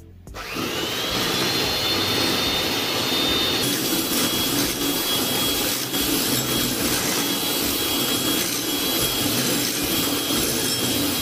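Electric hand mixer switched on, its motor whining up to speed within the first second, then running steadily as the beaters whisk an egg and sugar mixture in a glass bowl; it cuts off at the end.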